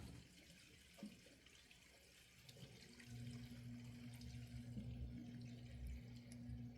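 Near silence: a faint click about a second in, then a faint steady electrical hum that starts about three seconds in.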